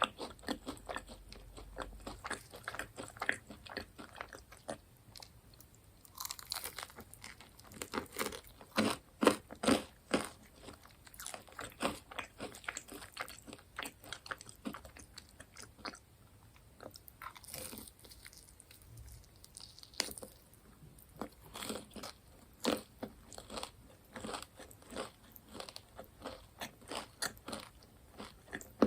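Close-miked crunching and chewing of crisp fried food: many quick crackly crunches in uneven runs, bite after bite.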